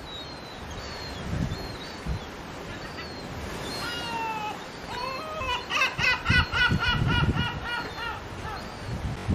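Gull calling: a few faint short calls, then a long drawn-out falling call, then a rapid run of about a dozen repeated calls, about four a second, lasting some three seconds.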